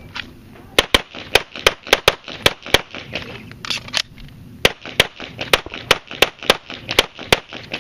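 9mm semi-automatic pistol fired in quick pairs, several shots a second. After a first string of about eight shots comes a gap of roughly two seconds for a slide-lock reload. A second string of pairs follows, fired strong hand only.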